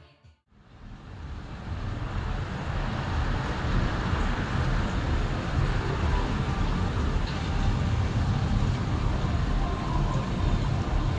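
Steady outdoor rumbling noise with no distinct events, fading in over the first couple of seconds after a brief near-silent gap.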